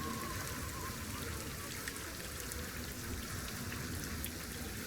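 Brine trickling and dripping down the blackthorn brushwood walls of a salt graduation tower: a steady patter of countless small drips over an even wash of running water.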